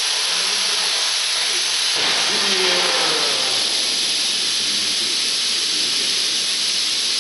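A steady, loud hiss that switches on with a click just before and holds unchanged, with faint voices underneath.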